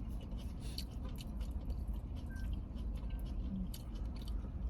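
Close-up chewing and wet mouth sounds: many small, irregular clicks and squishes over a low steady hum.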